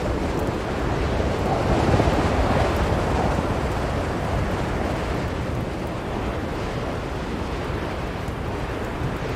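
Blizzard wind blowing steadily, with a gust swelling up about two seconds in and easing off again.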